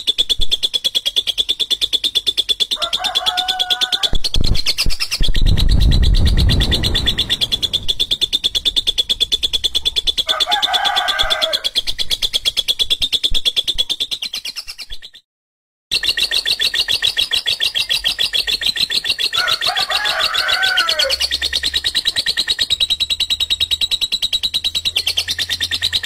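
Lovebird giving its long, harsh 'ngekek' song: a continuous, very rapid high-pitched chattering trill that stops briefly about halfway and then resumes. Three shorter, lower calls come in over it, and there is a low rumble around five seconds in.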